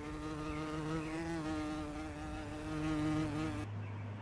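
An insect buzzing in flight: a steady, slightly wavering drone that cuts off suddenly near the end, leaving a faint low hum.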